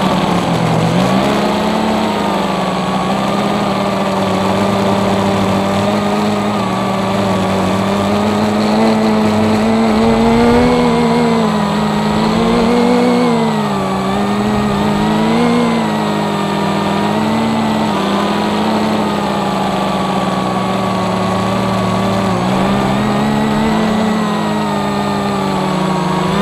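Brushless motors and propellers of a scratch-built FPV quadcopter buzzing, the pitch swinging up and down again and again as the throttle is worked.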